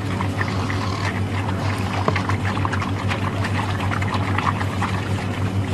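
Water splashing and pouring at a water hole, heard as a stream of short crackling splashes over a steady low hum.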